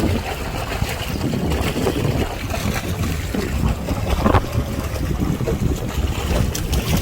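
Strong wind buffeting the microphone: an uneven, gusting low rumble, with a few light clicks.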